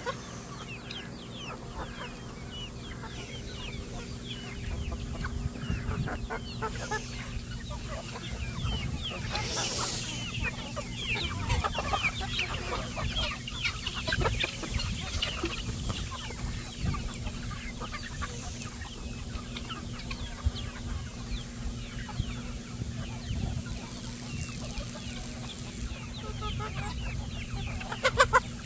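A large flock of chickens clucking and calling all at once, a dense, constant chatter, with one louder call near the end.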